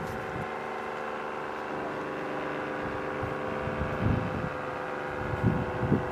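ACA Screamer S-10 electromechanical siren sounding a steady, many-toned wail, with brief low rumbles of wind on the microphone about four and six seconds in. It sounds rather weak: its top lid is broken out and sucked down so little air reaches the rotor, and its motor is reverse-wired so the angled rotor vanes spin the wrong way.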